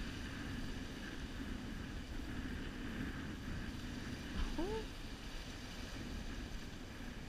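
Surf washing over a rock ledge with wind buffeting the microphone, a steady rushing noise. About four and a half seconds in, a short rising call cuts through.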